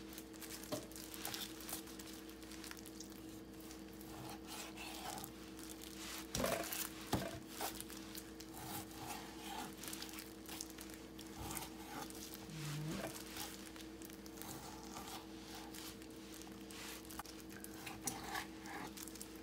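Chef's knife cutting raw boneless chicken thigh into pieces on a plastic cutting board: soft slicing and tearing through the meat with frequent light taps of the blade on the board, and a couple of louder knocks about six to seven seconds in. A steady faint hum runs underneath.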